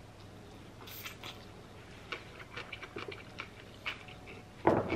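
Close-miked chewing of a mouthful of spaghetti: soft, wet mouth clicks and smacks, spread irregularly over a few seconds. A voice starts again just before the end.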